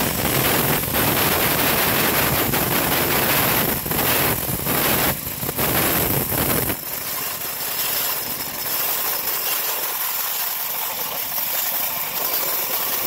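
Home-built bandsaw sawmill cutting lengthwise through a log, the blade's cutting noise over the machine's running drive. About seven seconds in the deep drone drops away sharply and a thinner hiss of the cut goes on.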